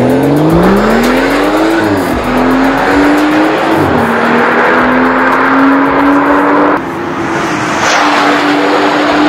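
BMW 340i's turbocharged 3.0-litre straight-six accelerating hard through an Fi Exhaust valved cat-back with a catless downpipe. The pitch climbs, then drops with an upshift about two seconds in and another near four seconds, then holds high and climbs slowly as the car pulls away. It dips suddenly in loudness about seven seconds in, then runs on at speed.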